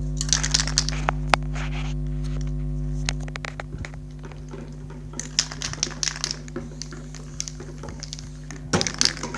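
Aerosol spray-paint can spraying in short hisses, with clicks from the can, over a steady low hum that drops in level about three seconds in.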